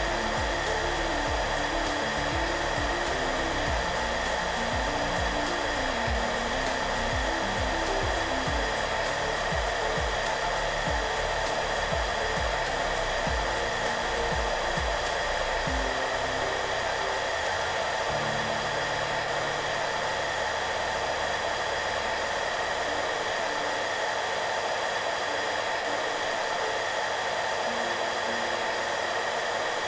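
Hair dryer running steadily, a constant even rush with a few fixed tones in it. Soft music plays underneath as changing low notes and bass.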